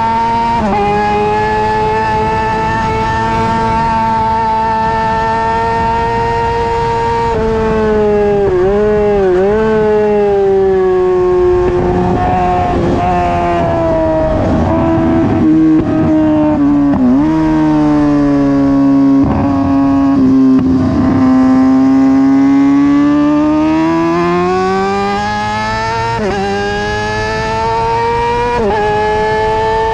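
2009 Kawasaki ZX-6R's 600 cc inline-four engine at high revs on track, heard from on board. Its high-pitched note dips sharply a couple of times, falls slowly through the middle, then climbs again, with two more quick dips near the end.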